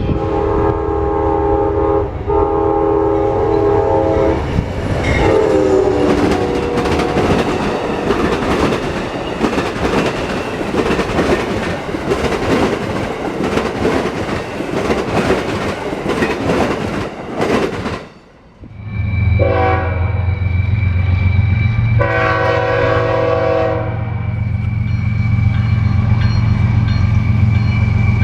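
Locomotive air horn sounding a chord, briefly broken near 2 s, whose pitch drops about 5 s in as the train passes, followed by the loud rattle and clatter of the train's cars going by. After a brief break, a locomotive's deep engine rumble comes in with further horn blasts over it.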